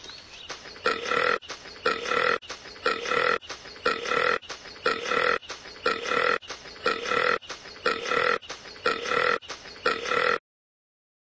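A young woman's burp, looped so that the same burp repeats about ten times, roughly once a second. It cuts off abruptly about ten seconds in.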